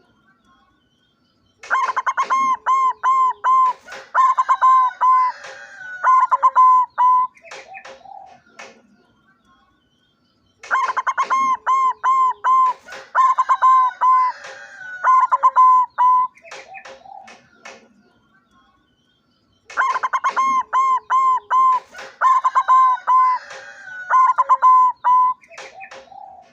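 Zebra dove (white barred perkutut) singing its rapid staccato cooing song in three matching bouts about nine seconds apart, with a few fainter notes between them.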